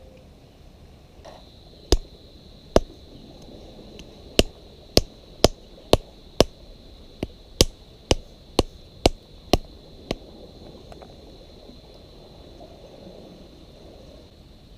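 A run of about a dozen sharp chopping strikes, roughly two a second, that stops a few seconds before the end, over a faint steady high-pitched tone.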